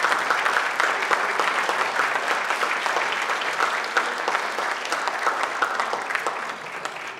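An audience applauding, a dense clatter of hand claps that slowly dies away near the end.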